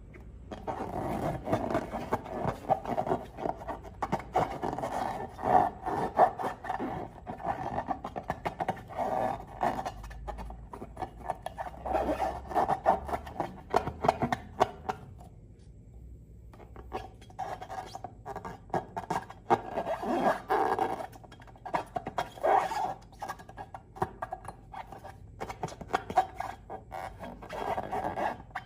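Slime being worked by hand: an irregular run of squishing, crackling and rubbing, with a short pause a little past halfway.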